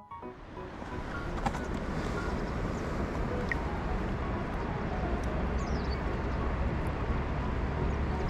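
Steady rushing outdoor noise with no clear pitch, strongest in the low range, with a few faint high chirps, like small birds, near the end.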